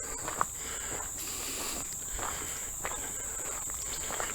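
A chorus of insects trilling steadily at one high pitch, with a few faint footsteps on the trail.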